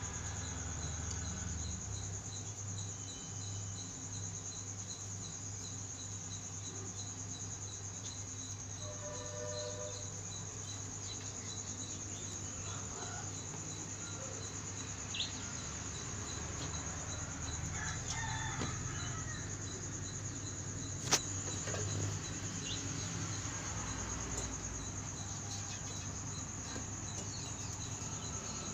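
Insects chirping steadily in a high-pitched, evenly pulsing trill, with a single sharp click about three-quarters of the way through.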